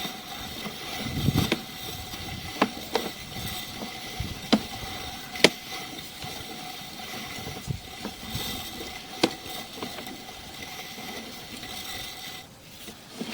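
Sewer inspection camera's push cable being pulled back out of the line by hand, with scattered sharp clicks and knocks over a steady hum that stops near the end.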